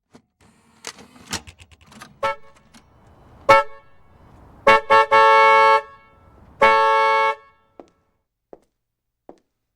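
Vehicle horn honking: a few short toots, then two long blasts, after some clicks and knocks.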